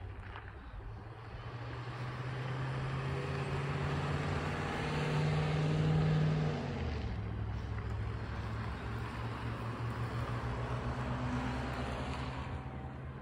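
A motor vehicle's engine passing by, growing louder to a peak about six seconds in, then dropping in pitch as it goes past and carrying on more steadily.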